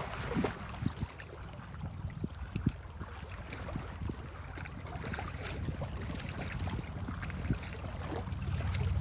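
Lake water splashing and lapping close to the microphone, with a few small splashes in the first few seconds, over a steady rumble of wind on the microphone.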